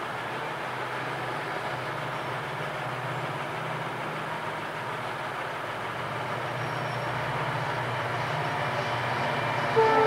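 Steady low rumble of distant vehicle traffic that grows louder over the last two seconds, then a loud horn starts sounding just before the end.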